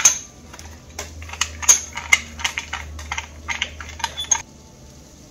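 Sharp metal clicks and clinks from a hand-held metal noodle press being assembled, its mold and threaded plunger twisted into the cylinder; about a dozen irregular clicks that stop abruptly about four seconds in.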